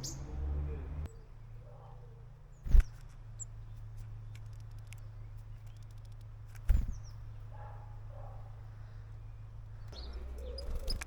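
Two sharp knocks, about four seconds apart, over a low steady hum, with a few faint bird chirps in the background.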